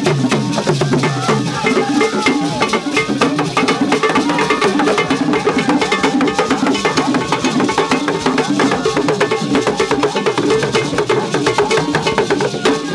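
Traditional Ghanaian drum ensemble: hand-struck barrel drums playing a fast, dense dance rhythm with sharp wooden-sounding clicks, steady throughout.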